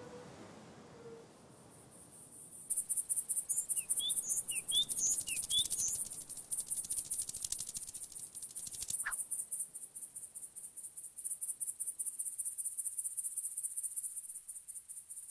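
An insect trilling in a fast, high-pitched pulsing that starts about three seconds in and carries on, with a few short high chirps over it a couple of seconds later.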